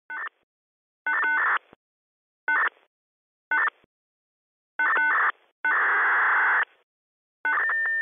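AutoCab taxi digital dispatch (QPSK data terminal) transmissions received on a VHF radio scanner: a string of seven short data bursts, each a fraction of a second to about a second long, cutting in and out with silence between them. The last burst carries steady tones.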